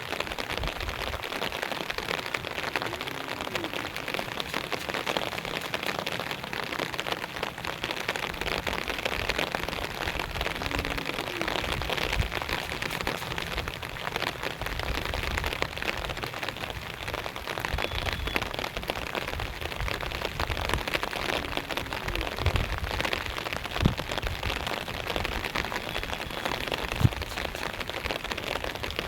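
Steady rain falling, an even hiss of drops with no change in strength, with a couple of brief knocks near the end.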